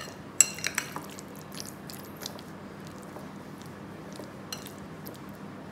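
A metal spoon stirring and mashing guacamole in a ceramic bowl: three ringing clinks of spoon on bowl in the first second, then soft scraping and squelching with occasional light ticks.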